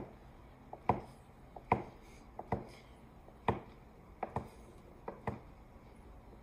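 Chef's knife slicing rolled fresh pasta dough into fettuccine on a wooden cutting board: a series of sharp knocks of the blade striking the board, roughly one a second, a few coming in quick pairs.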